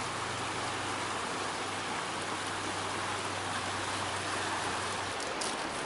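Steady rush of water from a stream spilling out of a spring-fed pool over rocks.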